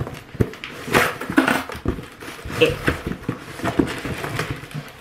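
Cardboard and paper book packaging being handled and opened, with irregular crinkling, rustling and short sharp crackles.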